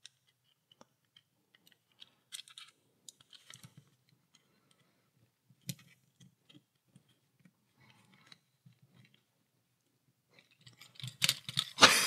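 Small metal pick scratching and clicking against the retaining ring on the end of a Euro cylinder lock as it is worked in to pry a gap under the ring. Faint, scattered ticks and scrapes, with a few louder clicks near the end.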